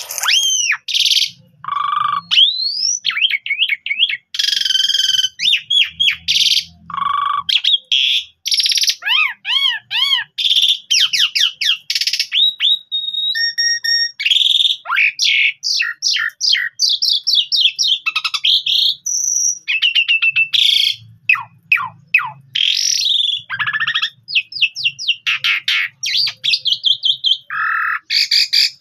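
A caged Asian pied starling (jalak suren) singing a long, unbroken song. It mixes clear rising and falling whistles, rapid runs of quick sharp notes and harsh chattering squawks.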